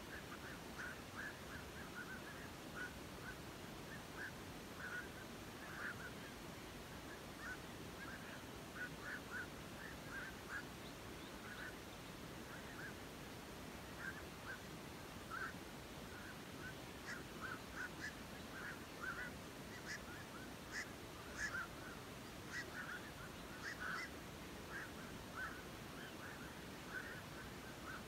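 Chorus of many herons and storks calling from a roosting colony in trees: short honking calls overlapping irregularly, busiest in the second half, over a steady low background noise.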